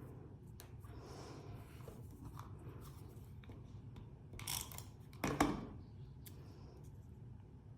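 Paper pieces being handled and pressed into place, with light rustles and small clicks, and two short, louder crisp snips or rustles a little past halfway.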